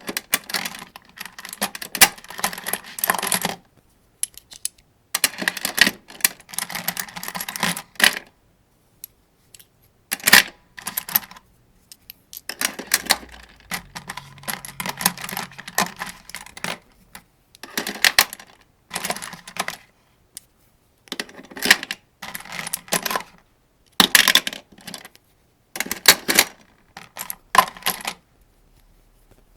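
Cartridges being pressed one at a time into a 75-round AK-47 drum magazine: repeated bursts of metallic clicks and rattles, each a second or two long, with short pauses between.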